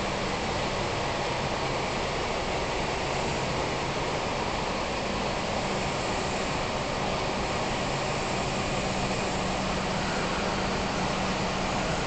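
Steady mechanical drone: an even hiss with a low hum underneath, holding level without a break.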